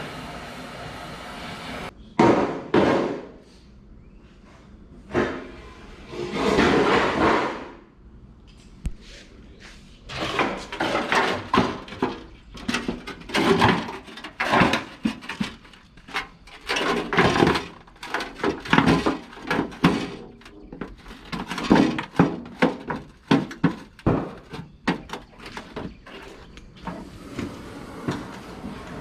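A steady hum, then a long series of irregular bangs and knocks, loud and unevenly spaced, as parts are worked on and handled in a shop.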